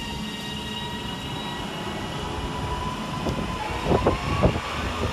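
Northern Class 331 electric multiple unit running through the station, with a steady electric whine from its traction equipment over the wheel rumble. A quick run of knocks from the wheels comes about three and a half seconds in and continues to the end.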